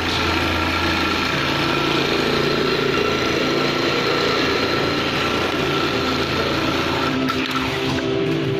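Heavy-duty computerised pattern sewing machine running steadily, its needle stitching a panel held in a template clamp while the motorised carriage moves it along the seam path.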